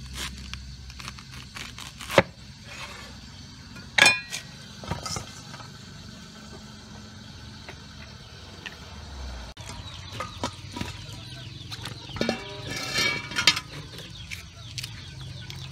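A cleaver chopping a banana flower heart on a wooden chopping block, with a loud chop about two seconds in, while chickens cluck at times. Near the end, water runs from a pipe into a plastic basin.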